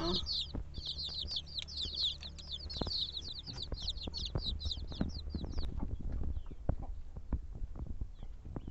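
Many young chicks peeping together: a rapid chorus of high, short, falling notes that dies away about two-thirds of the way through. Scattered light knocks run beneath.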